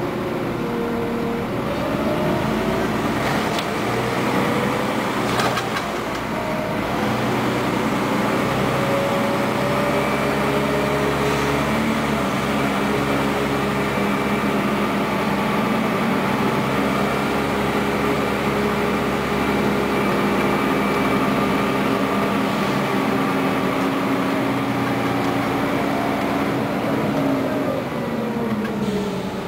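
Scania N94UA articulated bus's diesel engine and drivetrain, heard from inside the bus. The engine pulls up through gear changes over the first several seconds, runs at a steady cruise, then falls away as the bus slows near the end.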